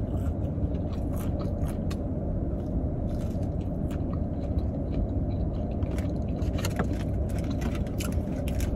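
Steady low rumble of an idling car, heard from inside the cabin, with scattered light clicks and rustles of eating and handling food.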